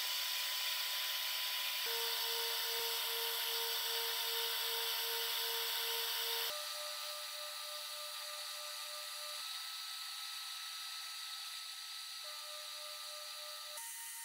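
Blast-cabinet sandblasting gun spraying abrasive grit onto a rusty cast iron skillet, stripping it to bare metal: a steady hiss of air and grit that drops abruptly in level about six and a half seconds in.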